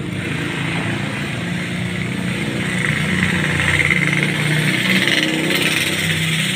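A motorcycle engine running steadily over general street traffic noise, swelling a little in the middle.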